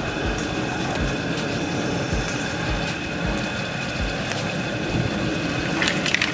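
Steady rumbling hiss of the burner under a large aluminium pot of vegetables and seafood frying. Near the end a wooden spoon starts scraping and stirring in the pot.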